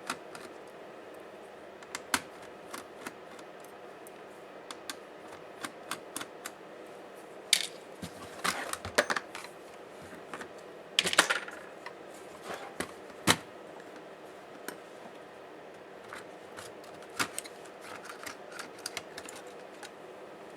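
Scattered small clicks and taps of laptop parts and tools being handled during disassembly, with a few brief scraping, rustling bursts in the middle and one sharp click a little after.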